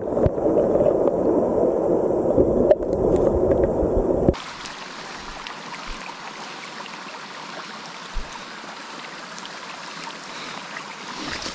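Small forest stream heard with the camera underwater: a loud, muffled rush of current. About four seconds in, the camera comes out of the water and the sound changes abruptly to the steady, quieter rush of the stream flowing over rocks.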